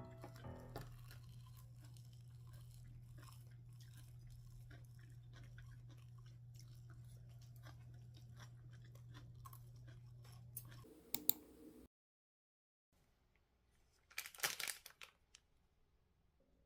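Faint crunchy chewing of food, with scattered small clicks, over a steady low hum, followed near the end by a short louder rustling noise.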